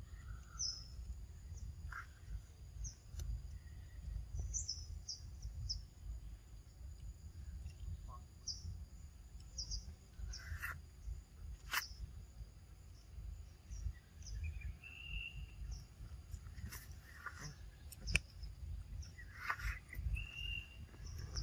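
Outdoor ambience: small birds chirping repeatedly over a steady high insect drone and a low rumble, with a few short squeaky calls and a couple of sharp clicks.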